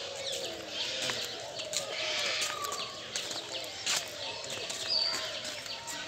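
Many captive birds chirping and calling at once in an aviary, a dense chorus of short chirps and whistles overlapping throughout.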